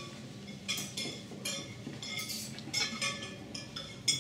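Knife and fork clinking and scraping on a ceramic plate, repeated short clinks with a brief ring after each.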